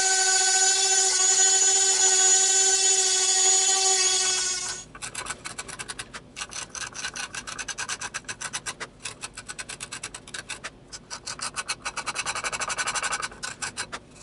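A Dremel rotary tool runs with a steady high whine, then stops about five seconds in. After that come rapid back-and-forth sanding strokes by hand on the spalted maple spoon, several a second.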